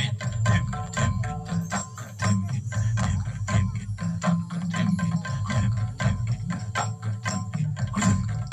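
Soundtrack music with quick percussion strikes, about three or four a second, over a low held drone.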